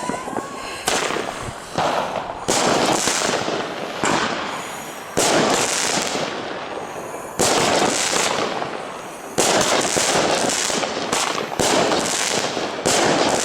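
Small consumer fireworks batteries (7-shot F2 cakes) firing shot after shot, roughly one to two seconds apart. Each shot is a sharp report followed by a fizzing crackle that dies away.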